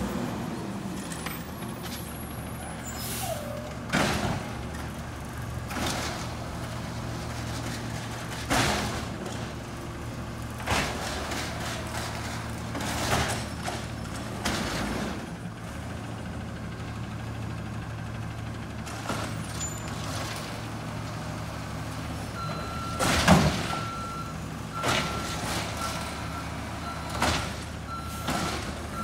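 Amrep automated side-loader garbage truck running at low speed, its diesel engine a steady low hum, with sharp air-brake hisses every couple of seconds. About 22 seconds in its reversing alarm starts, beeping about once a second as it backs up.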